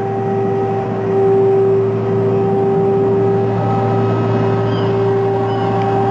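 Diesel walk-behind street litter-vacuum cleaner running with a steady drone, a single held tone over a deeper hum, growing a little louder about a second in as the machine comes closer.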